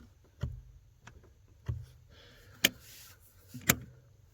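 Brake pedal being tapped, its arm clicking against the brake light switch. It makes a handful of separate sharp clicks, the two loudest near the end, over a faint low hum.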